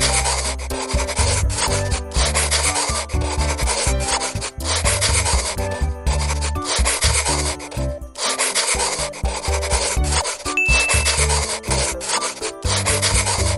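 Felt-tip marker scratching across paper in long strokes of a second or two, with short breaks between strokes, as the drawing's outlines are inked. Low background music notes run underneath, and a brief high beep sounds about two-thirds of the way through.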